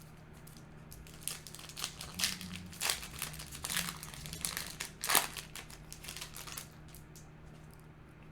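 Trading-card booster pack wrapper crinkling and being torn open by hand: a run of sharp crackles lasting about five seconds, loudest near the middle of the run.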